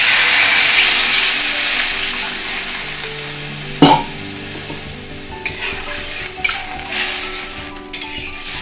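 Water poured into a hot kadai of fried moong dal hisses and sizzles loudly, the sizzle slowly dying away. A metal clank comes about four seconds in, then a metal spatula scrapes and stirs in the wok.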